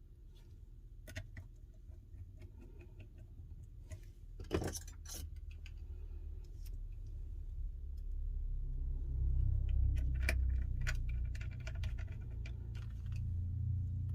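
Small sharp clicks and taps of tools and tiny phone parts being handled during iPhone 12 reassembly, scattered irregularly, over a low rumble that grows louder about halfway through.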